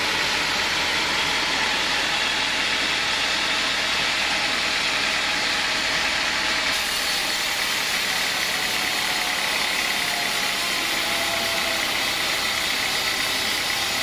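Band sawmill running and sawing lengthwise through a teak log: a steady loud machine drone with the hiss of the blade in the wood. About halfway through, the hiss turns brighter.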